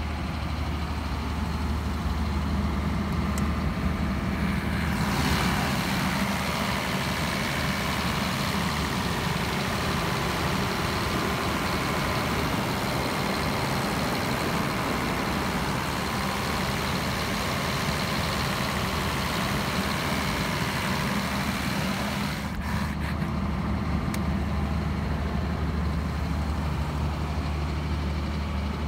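JCB 350 kVA diesel generator with a Scania engine running steadily at constant speed inside its acoustic canopy. From about five seconds in until about 22 seconds the engine comes through much louder and brighter through an open enclosure door, then drops back to a muffled low hum.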